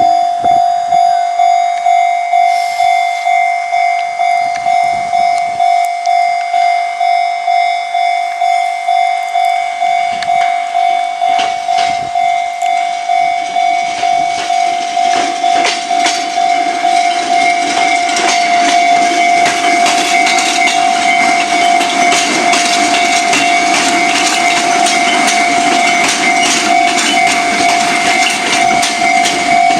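Japanese level-crossing warning bell ringing in quick, steady, even dings. About halfway through, a Fujikyu line train passes over the crossing: a rising rumble, with wheels clacking over the rail joints.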